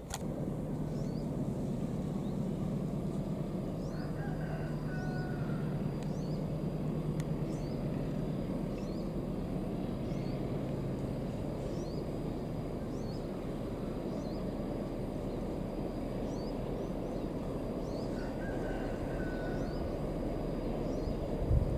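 Distant diesel locomotive hauling a train of fuel tank wagons, a steady low engine drone that slowly grows as the train approaches. A bird calls briefly twice, and a faint high insect-like tone with regular chirps runs above it.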